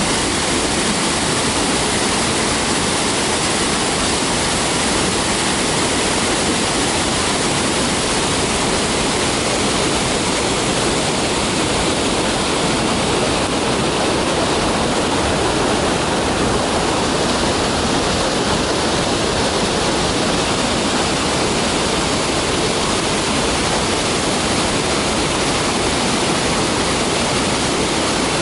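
Bypass water released from a hydro dam gushing out of the dam face and crashing into the pool below: a loud, steady rush of water.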